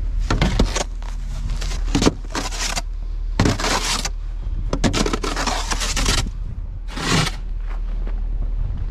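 Snow shovel scraping and digging in snow: repeated irregular scrapes, some short and some lasting about a second, over a steady low hum.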